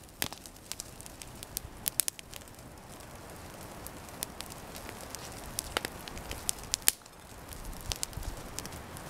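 Wood campfire crackling, with irregular sharp pops over a faint steady hiss.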